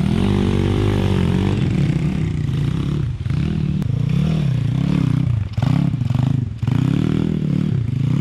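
Dirt bike engine revving up and down over and over, about once a second, as the throttle is worked on and off to climb a rooty trail. The throttle is chopped briefly a few times, around three, five and a half and six and a half seconds in.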